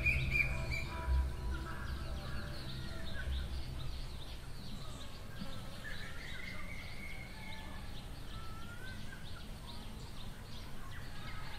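Small birds chirping in many short calls and little rising and falling whistles, over a steady low rumble of background noise. The last held notes of background music fade out in the first second or so.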